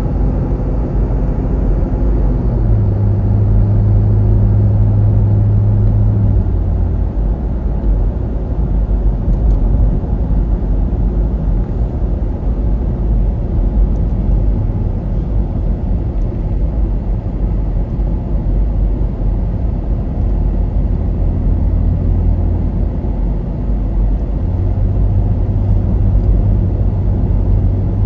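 A car driving along a road, heard from inside: steady low tyre and road rumble with a low engine drone. The drone is strong for the first several seconds, drops away, and returns near the end.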